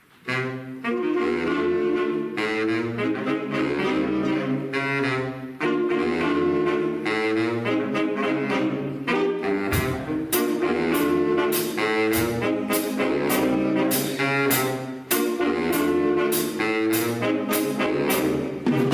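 Big band playing a jazz number, saxophones and brass in harmony over a bass line, coming in suddenly just after the start and running on at full volume.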